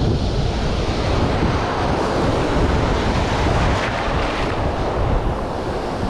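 Sea surf breaking and washing through the shallows, with wind buffeting the microphone.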